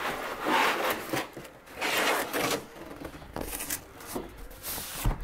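Packing foam and cardboard being pulled and lifted out of a boxed printer: several irregular scraping, rustling rubs.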